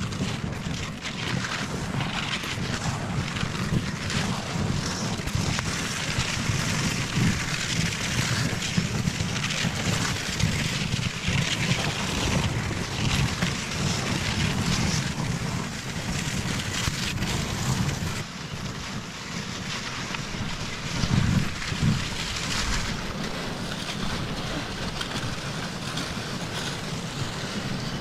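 Skis and a loaded pulk sled sliding and scraping over packed snow, with wind rumbling on the microphone. A steady noisy hiss throughout, swelling briefly about three-quarters of the way through.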